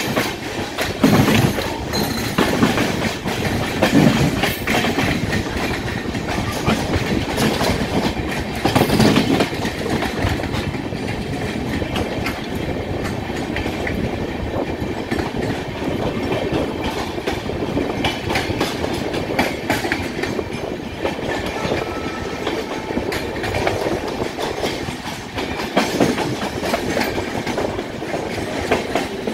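Passenger train coaches running at speed, wheels clattering over the rail joints, with a few louder clatters along the way, heard through an open coach window with a second train passing close on the next track.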